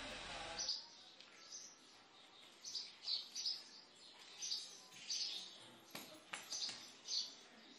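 Small bird chirping, short high calls repeating about every half second over a quiet background. A steady rushing ambience cuts off less than a second in, and a couple of sharp clicks come near the end.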